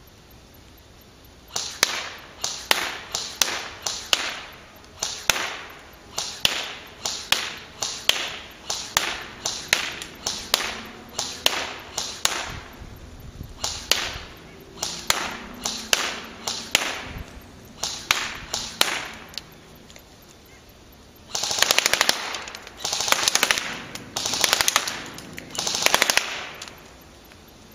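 Echo1 AR57 airsoft electric rifle (AEG) firing a long string of single semi-auto shots, about one to two a second. After a short pause it fires four short full-auto bursts near the end.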